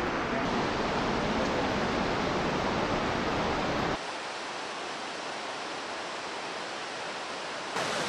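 Steady rushing hiss of falling water from Nunobiki Falls, a wide curtain of thin cascades. About four seconds in it turns softer and thinner, then grows louder and fuller again just before the end.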